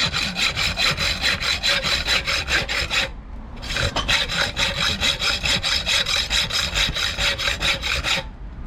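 Hacksaw cutting a metal engine-mount bracket by hand in quick, even back-and-forth strokes. The bracket rings thinly under the blade. The sawing breaks off briefly about three seconds in and stops just before the end.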